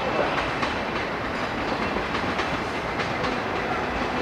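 Blue passenger coaches rolling past, with a steady rumble and their wheels clattering over rail joints and points several times a second.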